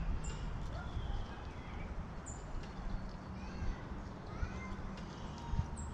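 Several short animal calls, chirps or mews rising and falling in pitch, scattered over a steady low rumble, with a brief high falling call about every two seconds.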